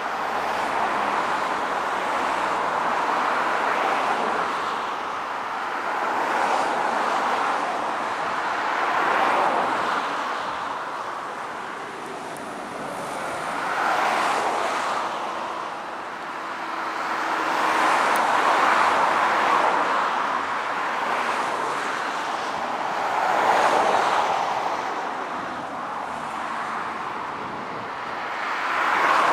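Steady roar of distant engine noise that swells and fades about every four to five seconds.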